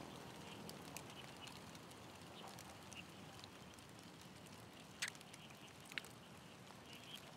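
Faint outdoor ambience with scattered short high chirps and two sharp clicks about a second apart in the second half.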